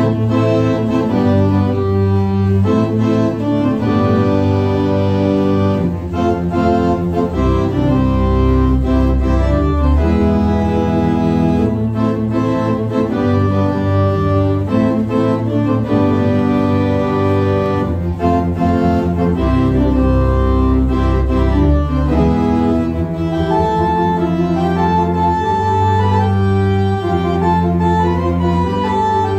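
Kimball theatre pipe organ playing a piece: chords and a melody over a sustained low bass, with notes changing about once a second.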